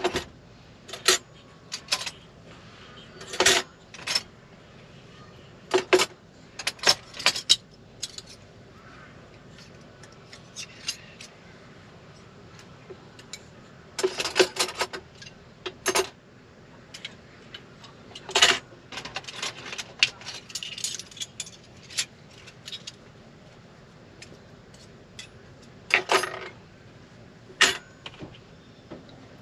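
Metal cutlery being dried by hand and put away, clinking and jangling in short clusters of sharp chinks with quiet pauses between them.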